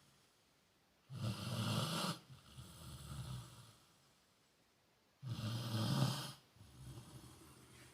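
Sleeping Rottweiler snoring: two slow breaths, each a loud snore followed by a softer, longer one, with quiet pauses between.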